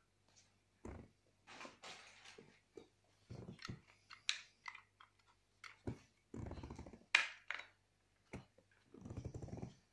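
Hard plastic stroller parts being handled and fitted onto a baby stroller's metal frame: scattered clicks, taps and knocks, the loudest a sharp click about seven seconds in. Two short low rumbling sounds, one about six and a half seconds in and one near the end.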